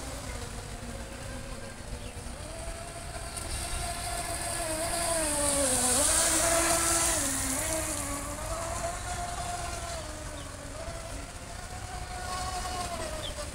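Radio-controlled speedboat running at speed, its motor a steady whine over the hiss of spray. It grows louder as the boat passes close about six seconds in, the pitch dipping and wavering as it goes by, then fades off again.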